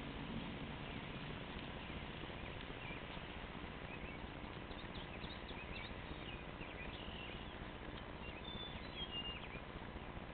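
A cat chewing and tearing at a rabbit carcass, soft wet chewing over a steady outdoor background hiss. Birds chirp faintly in the distance, a few short calls about halfway through and again near the end.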